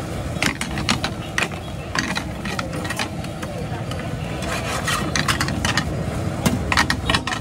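A metal spatula scraping and clinking against a steel omelette pan in quick irregular strokes, over the steady rush of a gas burner's open flame.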